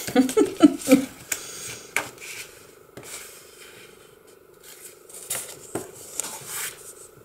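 Paper and envelopes rustling and sliding against each other and the cutting mat as they are handled, with a few light ticks and taps.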